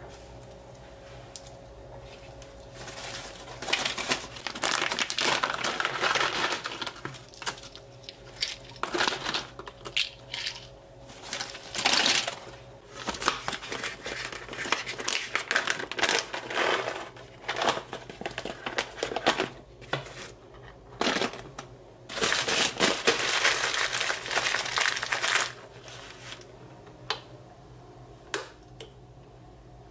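Paper bags crinkling and rustling as they are handled, in several bursts of a few seconds each, with the longest stretch about three-quarters of the way through; quieter near the end.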